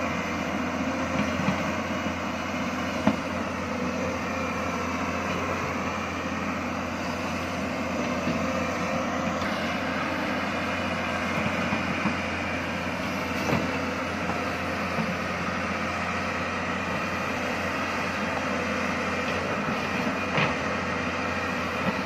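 Hyundai crawler excavator's diesel engine running steadily under digging load. A few short knocks come through as the bucket works the soil, about three times.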